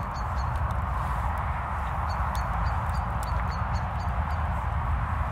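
Wood fire burning in a Bush Box folding metal stove, crackling with small irregular pops over a steady rushing hiss.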